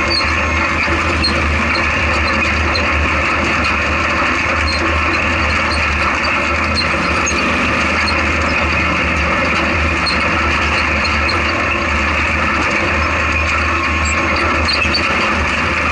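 Off-road race truck's engine running steadily under way over rough desert ground, heard from inside the open cab, with light rattles and ticks from the chassis and cab.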